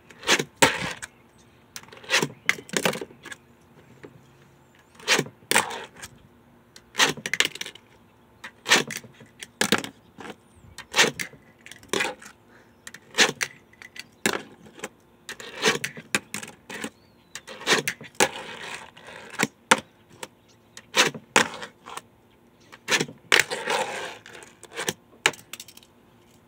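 Tech Deck fingerboard tricks on a hard tabletop: sharp clacks of the small deck and wheels popping and landing, in quick clusters every second or two. Twice, about two-thirds of the way through and near the end, the clacks are followed by a longer scrape.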